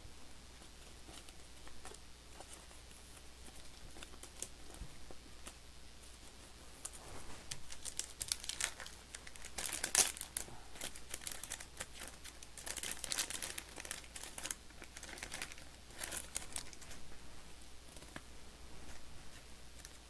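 Thin plastic card sleeves crinkling as trading cards are slid into them, in short spells of crackle through the middle, loudest about ten seconds in.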